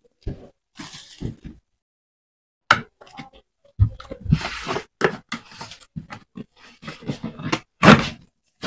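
Polythene wrapping rustling and being pulled off, with irregular knocks and thuds from handling a hard plastic power-tool case and box.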